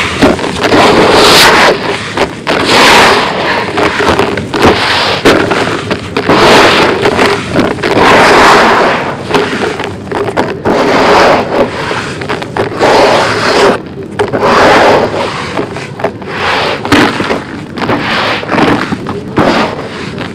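Handfuls of crumbled concrete grit scooped up and poured back into a heap, a gritty rattling rush of falling granules. The pours come again and again, about one every second or so.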